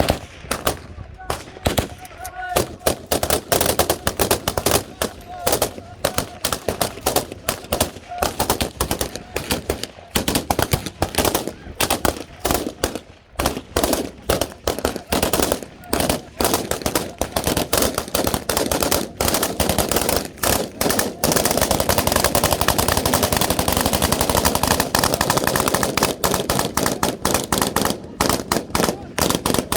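Many guns firing into the air in rapid, overlapping single shots and automatic bursts, the gunfire salute of a tribal 'arada. A little past two-thirds of the way in, the firing becomes almost unbroken for several seconds.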